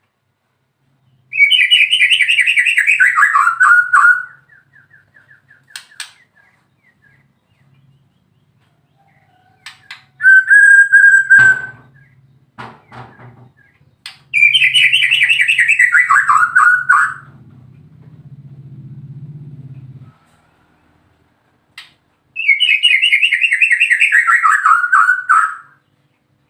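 White-rumped shama (murai batu) singing: a loud, rapid trill that slides down in pitch over about three seconds, given three times, with a short clear whistle and softer scattered notes in between.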